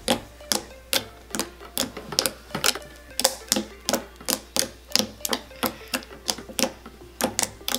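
Glossy coffee slime made from PVA glue being pressed and poked with fingertips, giving an uneven, rapid series of sharp pops and clicks, about three a second.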